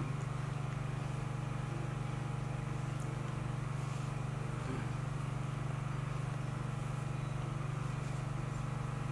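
A steady low hum, with only a few faint light rustles over it.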